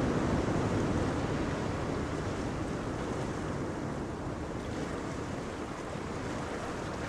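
Steady rushing noise of wind and sea water, with no clear engine note, easing off a little as it goes.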